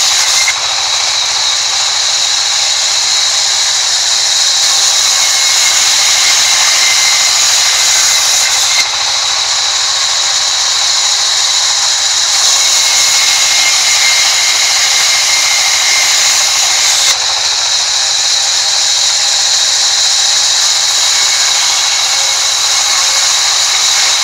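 Sawmill band saw running and ripping wooden planks: a loud, steady high hiss with a constant high whine through it.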